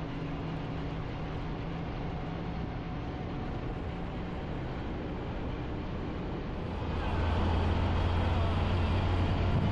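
Motor vehicle engine running with steady road noise; about seven seconds in it grows louder, with a deeper, stronger engine hum.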